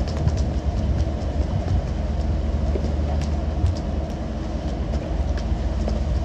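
Fishing boat's engine running with a steady low rumble, with water washing along the hull and scattered sharp knocks and taps from the deck as the crew land fish with their poles.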